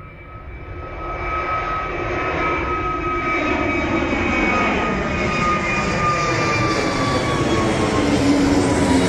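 Jet airliner's engines coming closer, their noise building over the first two seconds and still rising slowly, with a high whine that slowly falls in pitch.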